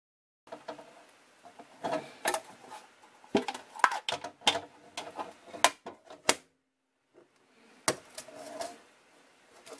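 A textured spring-steel print sheet being handled: lifted off the 3D printer's magnetic bed and flexed to pop a PET print free, giving a quick run of sharp clicks, knocks and scrapes. The clicks stop briefly, then one more knock and scrape come about eight seconds in.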